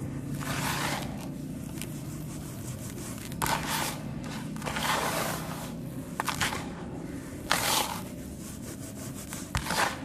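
Chunks of set sand cement being crushed and crumbled, in about six irregular gritty crunches of differing length, over a steady low hum.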